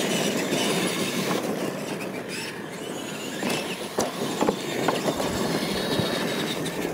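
Radio-controlled monster trucks racing flat out on a dirt track: motors and geartrains whining and rattling, big tyres crunching over the dirt, with a few sharp knocks about four to six seconds in.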